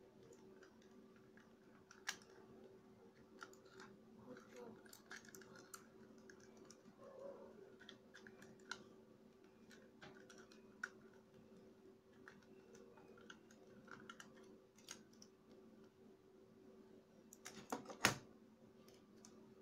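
A disassembled A4Tech N-400 computer mouse being handled: scattered light clicks and taps of its plastic shell and circuit board, with a sharper cluster of clicks near the end.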